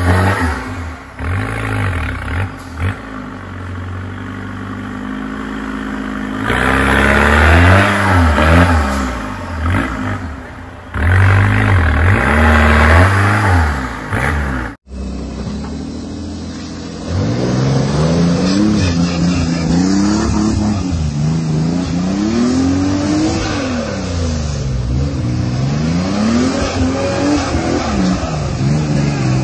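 Off-road 4x4 engines revving hard, the pitch rising and falling over and over as the throttle is worked. About halfway through, the sound cuts abruptly to another engine revving in repeated swells.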